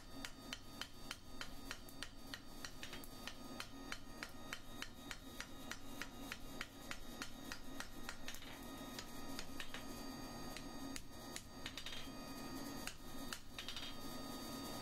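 Hand hammer striking red-hot square steel bar on an anvil: a rapid run of light blows, several a second, rounding off the corners of a forged skull's jaw.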